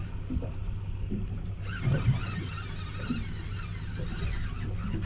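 A boat's outboard motor idling steadily, with a couple of low thumps about two seconds in.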